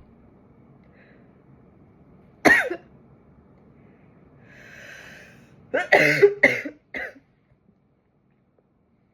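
A woman sneezing: one sharp sneeze about two and a half seconds in, then a drawn-in breath and a quick run of several more sneezes close together.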